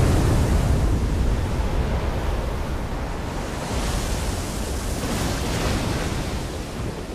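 Stormy sea surf: waves breaking and washing up a shore, with wind and a deep rumble underneath, swelling again about four and five seconds in.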